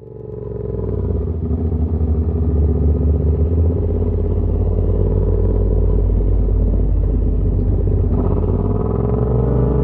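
Sport motorcycle engine running at low speed as the bike pulls away and accelerates, the exhaust note climbing in pitch near the end. The sound fades in over the first second.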